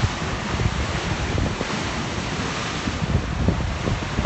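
Sea waves washing and breaking on the shore of a rough sea, with wind buffeting the phone's microphone in gusts.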